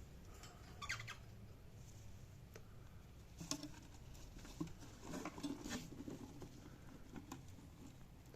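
Faint scattered taps and scratchy rustles of a cockatiel moving about, with a small cluster of them about five to six seconds in; no clear call.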